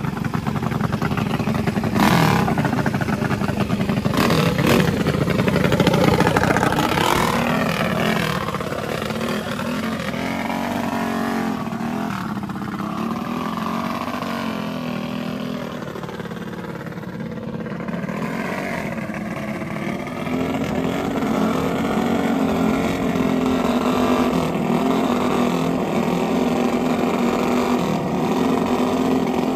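Small-block minibike engines revving and running hard in a drag race. The sound eases somewhat in the middle, then settles into a steady engine drone near the end.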